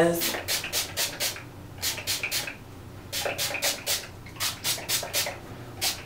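Trigger spray bottle of hair heat protectant misting over the hair: many short hissing sprays in quick runs of three to five.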